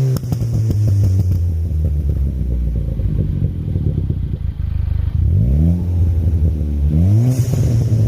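2015 Ford Fiesta ST180's turbocharged 1.6 EcoBoost four-cylinder, remapped for overrun crackles and running a 3-inch non-resonated Scorpion exhaust, dropping off a rev and crackling and popping on the overrun for about five seconds. It is then blipped twice, with short rises in revs about five seconds in and near the end.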